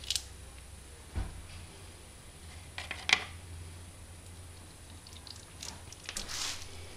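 Hands handling wheel bearings and small parts on a workbench while greasing them: a dull thump about a second in, a sharp click about three seconds in, and a brief rustle near the end.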